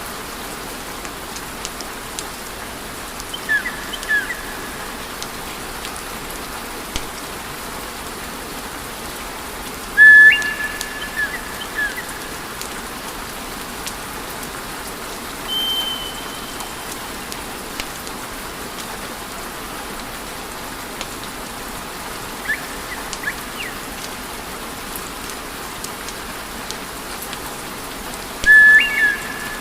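Wood fire in a fireplace crackling, with a steady hiss and scattered small pops. Several short high whistling tones come and go, the loudest about ten seconds in and near the end.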